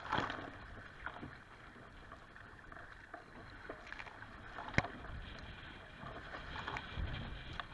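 Choppy lake water slapping and splashing against a kayak's bow, with a loud splash of spray right at the start and a sharp knock about halfway through.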